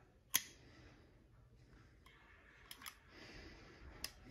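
Metal clicks from the steel receiver of a Smith & Wesson 916A shotgun as the cartridge cutoff is worked into place by hand. A sharp click comes about a third of a second in, two lighter clicks near the middle and one more near the end, with faint handling noise between.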